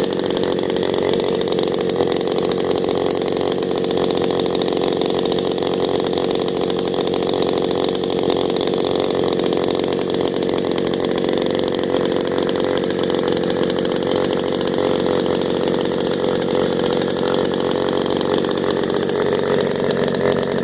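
Homelite Super XL-12 two-stroke chainsaw fitted with a dual-exhaust muffler, running at a steady speed.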